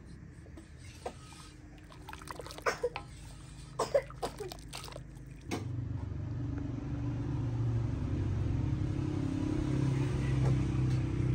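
Metal clanks and knocks from a large iron karahi being handled, a few of them sharp and loud. About halfway through a steady low rumble comes in and holds, then cuts off abruptly.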